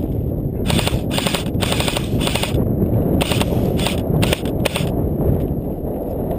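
Airsoft gun firing about eight short bursts of rapid shots, in two groups about a second apart, over a steady low rumble of wind on the microphone.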